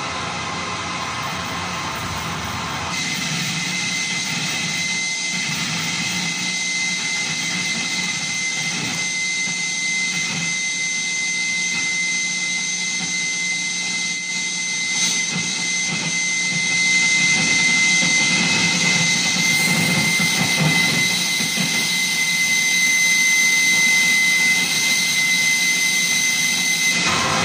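Harsh noise from a live electronic set run through effects pedals: a dense, steady wall of static with a thin high whistle held through it. The texture shifts about three seconds in and gets a little louder past the halfway point.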